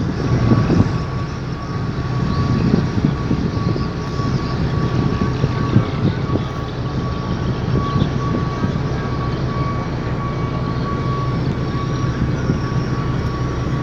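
Steady low drone of a ship's engines heard on board, with a thin steady whine above the rumble.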